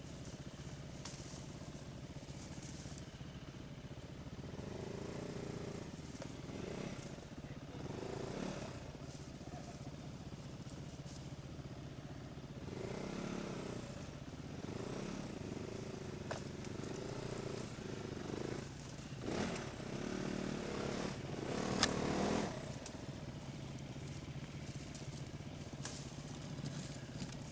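Trail motorcycle engine ticking over, with the throttle opened in several short swells that rise and fall, the biggest about three quarters of the way through. Twigs and dry leaves crackle and snap against the bike now and then.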